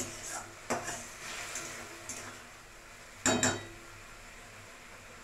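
Metal spatula scraping and stirring a thick onion-tomato masala paste in a metal kadai as it is fried down, several short scrapes in the first two seconds. About three seconds in come two sharp metallic knocks of the spatula against metal, with a short ring.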